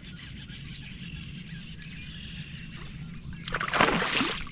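A hooked fish splashing and thrashing at the water's surface beside the kayak: one loud, rough splash lasting about a second, starting about three and a half seconds in, over a faint steady outdoor background.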